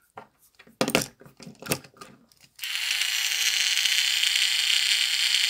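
Plastic clicks as an AA battery is fitted into a Plarail Thomas battery toy train. About two and a half seconds in, its small electric motor and plastic gears start whirring steadily as the wheels spin freely off the track, running smoothly.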